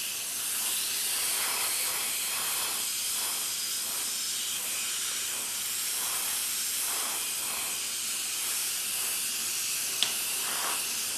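Airbrush spraying paint: a steady hiss of compressed air through the nozzle, with the air pressure turned up a little. A single sharp click about ten seconds in.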